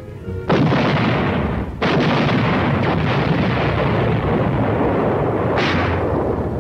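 Artillery firing: a sharp blast about half a second in, another just before two seconds and a third near the end, with a heavy rolling rumble between them.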